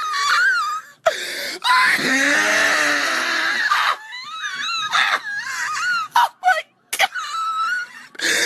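A person screaming and wailing in a very high pitch in a string of short bursts, with one long, harsh scream about two seconds in.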